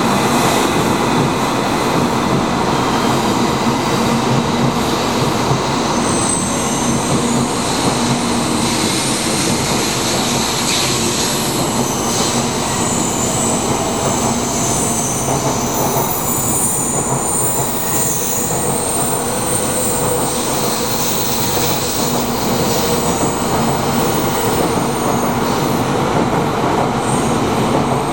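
A 700 series Shinkansen bullet train departing a station platform and gathering speed as its cars run past close by: a steady, loud rumble of wheels on rail and running gear, with faint thin high tones in the middle stretch.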